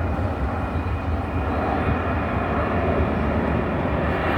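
Display aircraft flying over, a steady engine noise that grows slightly louder.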